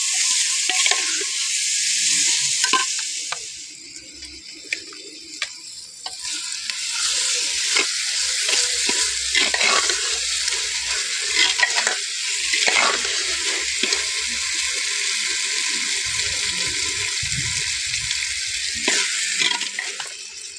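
Chopped vegetables sizzling as they fry in a clay cooking pot, stirred with a steel ladle that clicks and scrapes against the pot. The sizzle dies down for a couple of seconds about four seconds in, then picks up again.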